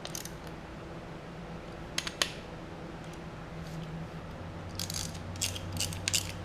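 Light, sharp metallic clicks and clinks of tools and engine parts being handled during engine assembly: a pair about two seconds in, then a quick irregular run of clicks near the end, over a faint steady hum.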